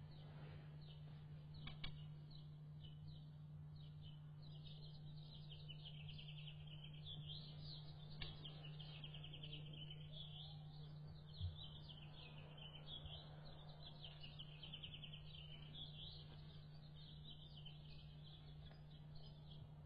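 Faint bird chirping and rapid trills over a steady low hum, with a few soft knocks, one about eleven seconds in.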